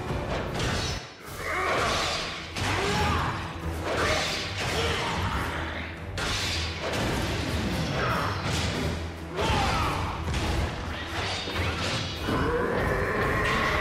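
Cartoon robot fight soundtrack: dramatic music under repeated metallic clashes, crashes and whooshes. A sustained tone comes in near the end.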